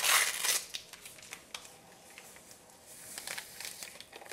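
Crinkling of the packet as lime Jell-O powder is emptied into hot water, loudest in the first half second, followed by soft clicks and rustles of the glass measuring cup being handled.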